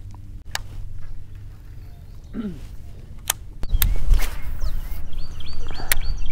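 Handling noise of rigging and casting a baitcasting rod: scattered sharp clicks and knocks, then a loud low rush on the microphone about four seconds in as the arm swings through the cast. Short, high repeated chirps, likely a bird, come near the end.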